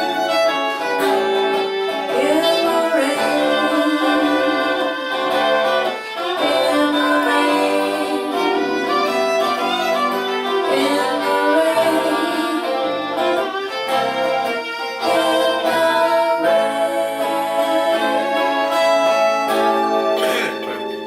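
Acoustic folk music with a fiddle playing the lead melody.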